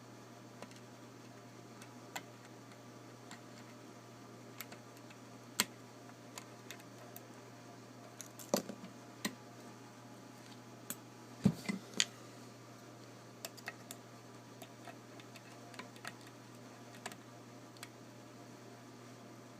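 Irregular small metallic clicks and ticks of a lock pick and tension wrench working the five mushroom pins of an old Yale pin-tumbler padlock, with a couple of louder knocks near the middle, over a faint steady hum.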